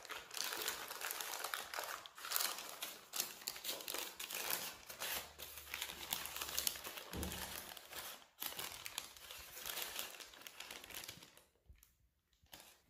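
A sheet crinkling and rustling steadily as the shortcrust base rolled out on it is handled and laid into a tart tin. The crinkling dies away about a second before the end.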